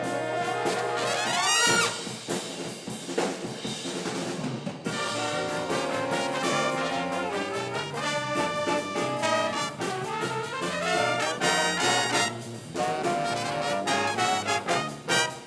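A school band playing a piece led by its brass, trombones and trumpets to the fore, with a rising run of notes about two seconds in.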